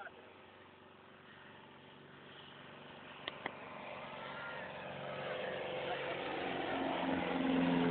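Single-engine light aircraft's piston engine and propeller drone, growing steadily louder as the plane climbs out after takeoff and comes closer overhead. Two short clicks about three seconds in.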